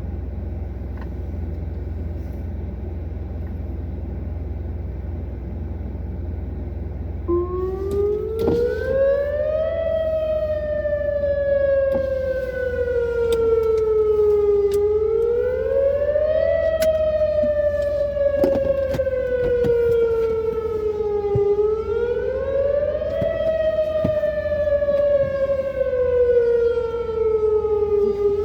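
Whelen WPS-2910 electronic outdoor warning siren starting up about seven seconds in for its monthly test, sounding a wail that rises over a couple of seconds and falls more slowly, about every seven seconds. Before it starts there is only a steady low rumble.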